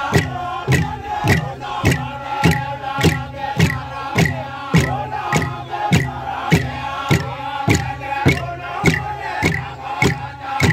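A group of men chanting together over a steady beat of sharp percussion strikes, a little under two a second.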